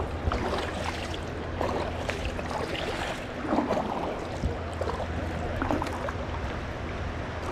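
Water rushing and splashing around a kayak and its paddle on a moving river, with scattered short splashes of the paddle and a low rumble of wind on the microphone.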